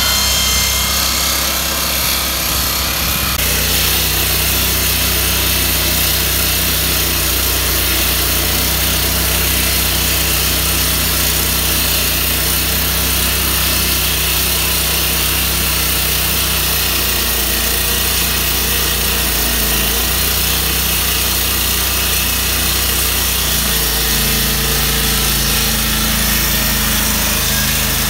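Walk-behind Core Cut road saw running steadily as its water-fed blade cuts across the pavement, a continuous engine-driven saw sound. The low engine note settles into an even drone about three and a half seconds in.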